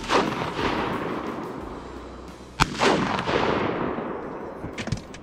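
Two shotgun shots about two and a half seconds apart, each a sharp crack followed by a long echo that dies away slowly. A few faint clicks come near the end.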